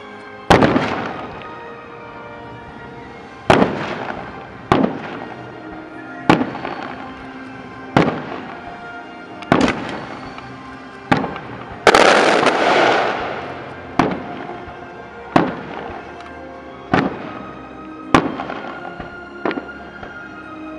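Aerial firework shells bursting overhead, about fourteen sharp booms one to two seconds apart. The biggest, about halfway through, is followed by a long hiss. Music plays faintly underneath.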